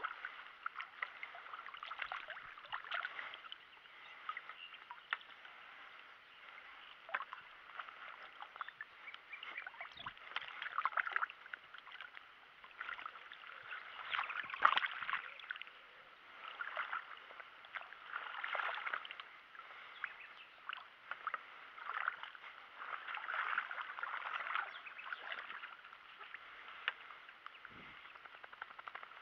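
Shallow water sloshing and splashing in irregular bursts as a landing net is moved through the water at the bank.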